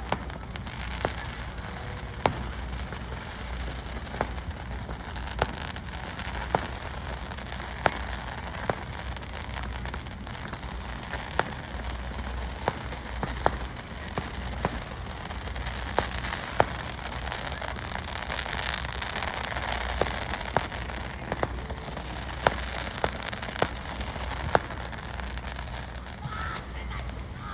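Fireworks display: sharp bangs of bursting shells, irregularly about once a second, over a steady crackling hiss that swells briefly about two-thirds of the way through.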